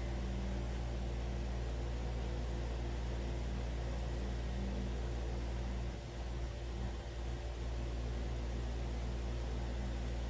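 Steady low electrical hum with a faint hiss, dipping slightly for a moment about halfway through.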